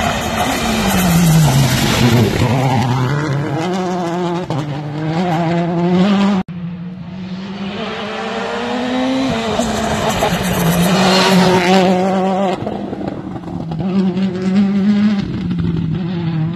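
Citroën C3 WRC rally car's engine at speed on tarmac: its note falls as it goes by, then climbs and drops in steps through quick gear changes. After an abrupt cut about six seconds in, another run, the engine again rising and falling with the shifts and lifts.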